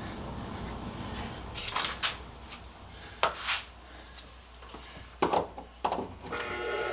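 Several light clicks and knocks from handling the furnace recirculation blower and its cord, over a faint hum. Near the end the blower motor starts spinning up, with a rising rush of air.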